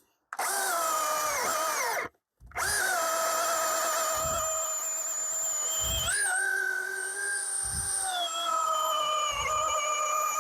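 Milwaukee M18 Fuel 20-inch battery chainsaw's brushless motor and chain whining at full speed: it spins up, winds down and stops about two seconds in, then starts again and runs steadily, its pitch sagging a few times as it is loaded in a cut.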